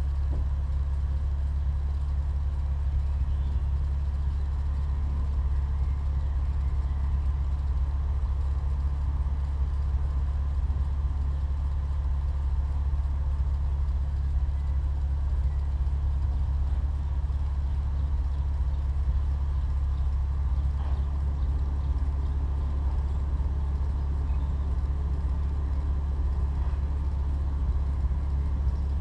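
Opel Insignia OPC's turbocharged 2.8-litre V6 running through its stock exhaust at a constant engine speed: a steady low drone that neither rises nor falls.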